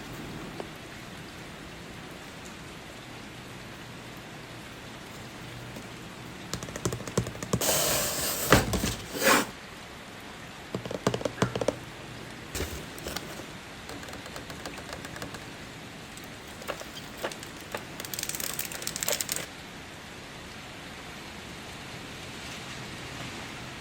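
Steady rain sound bed under keycap unboxing: packaging is handled in two loud rustling bursts, one about a third of the way in and one near the three-quarter mark, with clusters of small plastic clicks and taps from the keycaps between them.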